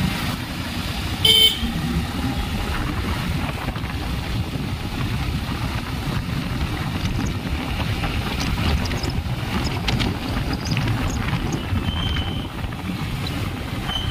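Motorcycle riding at low speed, engine and road rumble running steadily. A short horn toot sounds about a second in, and a fainter beep near the end.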